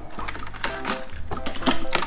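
Background music with a steady beat, over a few sharp clicks and clatters of small die-cast toy cars being set down on a plastic race track.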